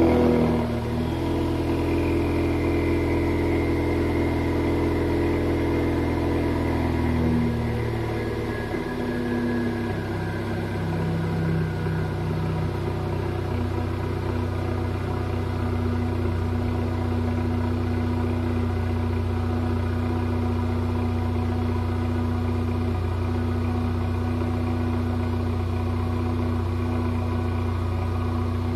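2017 Ford Mustang EcoBoost's 2.3-litre turbocharged four-cylinder idling through a muffler-delete exhaust with 3-inch pipes, settling from its start-up idle. The level drops a step right at the start and again about seven seconds in, then the idle holds steady.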